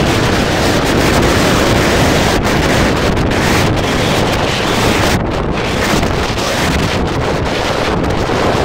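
Wind buffeting the microphone on the open deck of a moving car ferry: a steady, heavy rumble of rushing air.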